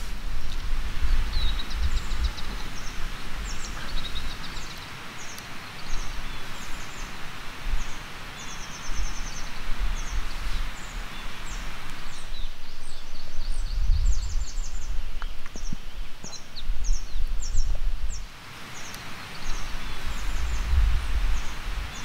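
Wind rushing through pine trees and grass, gusting on the microphone in low rumbles, with small birds chirping in quick high trills throughout. The rush drops for a few seconds about halfway through.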